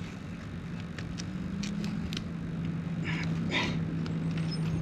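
A vehicle engine hums steadily with a low tone, slowly growing louder, with a few short clicks over it.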